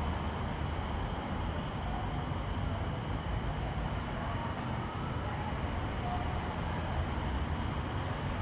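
Steady low outdoor background rumble, with a few faint short tones now and then.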